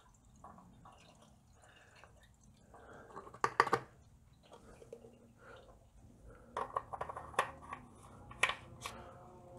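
Thin engine flush fluid pouring and dripping from a bottle into an engine's oil filler neck, faintly. Sharp clicks and clatters of plastic and metal come about three and a half seconds in and again several times in the last three seconds as the bottle is lifted away and the filler is handled.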